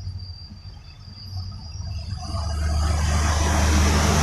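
A motor vehicle approaching on a wet road: its engine hum and tyre hiss swell from about halfway through and keep growing louder. Insects chirp faintly in the first half.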